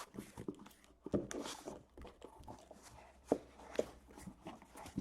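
Handling noise from cardboard trading-card boxes being moved and set down: irregular light knocks and clicks with some rustling, two sharper knocks a little past the middle.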